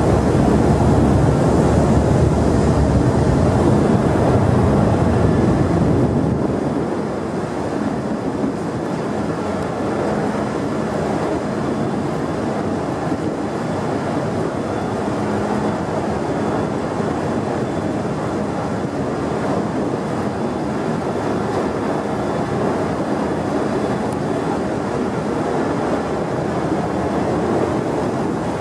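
Steady rumbling ambience on the car deck of the ferry M/V Hyak. It is louder for about the first six seconds, then settles to an even level.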